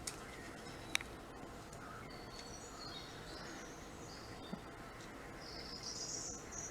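Birds chirping and singing, played through a computer's speakers from a bird video, with short calls scattered throughout and a denser burst of song near the end. Two sharp clicks come in the first second and a smaller one midway.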